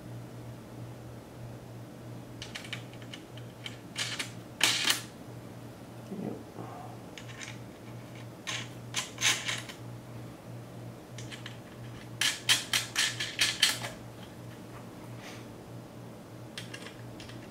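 Small metal screws being turned and seated by hand in a radiator fan shroud: scattered bursts of light metallic clicking, with the longest rapid run about two-thirds through, over a steady low hum.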